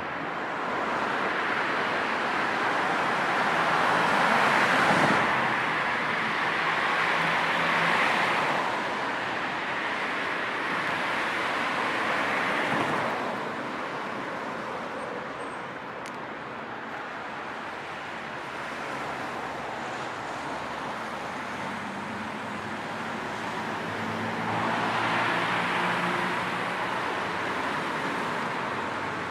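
Road traffic: a steady wash of tyre and engine noise, with vehicles passing by in swells that peak a few seconds in, about two seconds later, briefly near the middle and again near the end. The last pass carries a low engine hum.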